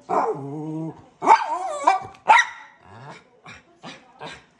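Small dog whining and barking to be let outside. A drawn-out whine opens, two or three loud, sharp barks come about one to two and a half seconds in, and it trails off into short, quieter yips.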